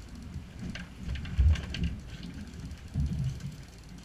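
Wind buffeting the microphone on an open boat at sea: uneven low rumbles, the strongest about a second and a half in, with a few faint clicks around the middle.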